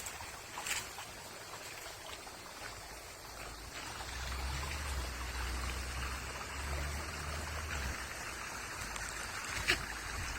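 Small ornamental garden waterfall splashing and trickling steadily into its pool. A low rumble sits underneath through the middle, and there are a couple of sharp clicks.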